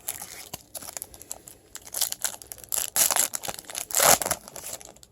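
Foil wrapper of a 2014 Bowman Chrome card pack crinkling and tearing as the pack is opened by hand, in irregular rustles and rips that are loudest about three to four seconds in.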